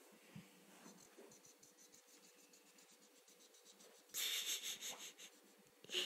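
A felt-tip marker scribbling on a picture-book page in quick back-and-forth strokes, faint at first, then louder for about a second about four seconds in, with one more short stroke near the end.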